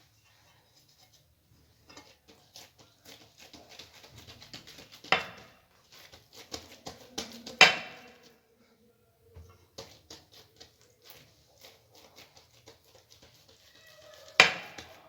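Kitchen handling sounds: soft rustling and small clicks as thin pastry sheets and a pan are handled, with three sharp knocks of kitchenware, about five, seven and a half, and fourteen and a half seconds in.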